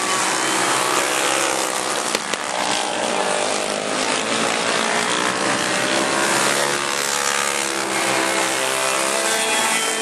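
Several racing go-kart engines running at high revs, overlapping, their pitch rising and falling repeatedly as the karts lap the track.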